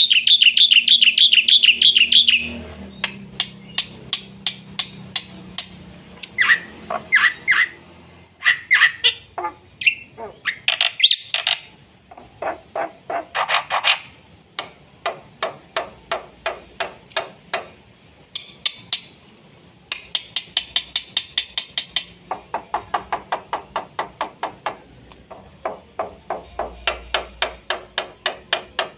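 Black-winged myna (jalak putih) singing at full tilt: a fast, varied string of trills, rapid runs of repeated notes and harsh chattering phrases, with short pauses between bursts.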